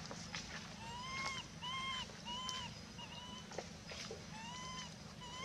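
Infant long-tailed macaque giving a run of short, high-pitched coo calls, each rising and falling, about six in all, with a short pause partway through.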